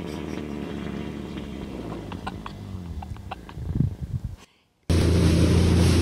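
A low steady drone with a few scattered clicks, then, after a brief cut to silence about five seconds in, a motorboat running at speed with water rushing and splashing in its wake and wind on the microphone.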